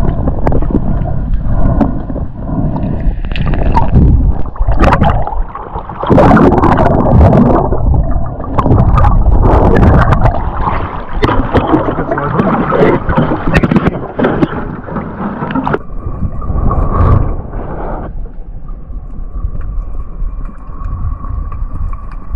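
Water splashing and sloshing around a camera at the surface beside a boat, with knocks and bursts between stretches of muffled underwater noise. It quietens after about two-thirds of the way through, and a faint steady hum comes in.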